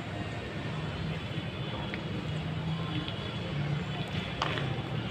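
Steady background noise of a town with a low hum of distant traffic.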